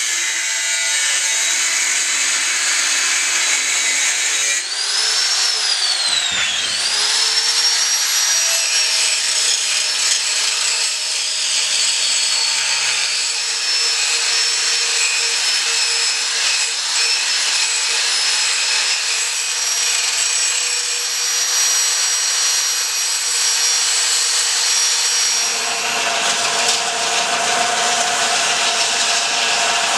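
A 4-inch angle grinder's wheel grinding a steel blade, with a steady high whine; about five seconds in the motor's pitch dips and climbs back up. Near the end the grinding gives way to a rasping scrape of steel being filed by hand.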